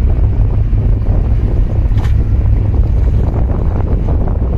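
Strong wind buffeting the microphone as a steady low rumble, over the wash of choppy harbour water, with a brief hissing gust about two seconds in.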